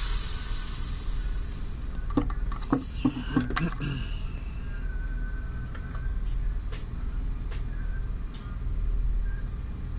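Steady low rumble of heavy marine machinery, with a few short louder sounds between about two and four seconds in.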